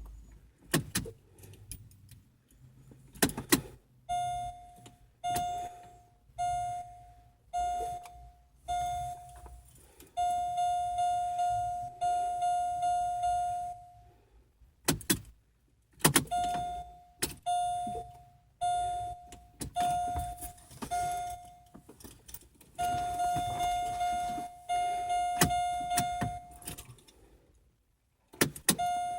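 A car's electronic warning chime beeping about once a second, twice settling into a steady tone for several seconds, with sharp clicks of the key and ignition in between; the engine never cranks, a no-start that the owner traces to a fried run/crank relay.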